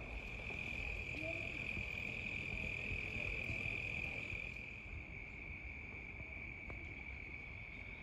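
Crickets chirring in one steady, high-pitched trill, over a faint low background rumble.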